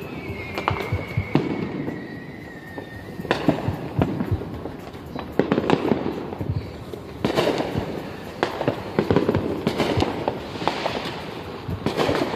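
Fireworks going off around the neighbourhood: a steady run of pops, bangs and crackles, in bunches every second or two. A thin whistle falls slowly in pitch over the first three seconds.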